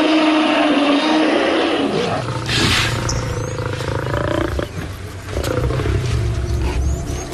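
Large wild animals calling: a loud, drawn-out roaring call for the first two seconds, then another falling call, with low rumbling growls toward the end.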